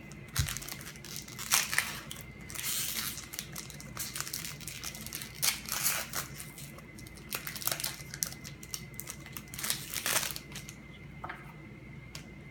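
Foil Pokémon TCG booster pack wrapper being crinkled and torn open by hand, in a string of irregular rustling and tearing bursts that die down near the end.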